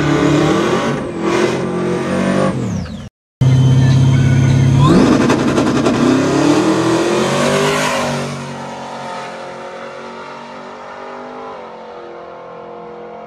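Donk drag car's engine revving hard at the starting line, then holding a steady high rev before launching. Its pitch climbs as it accelerates away down the strip, and the sound fades into the distance.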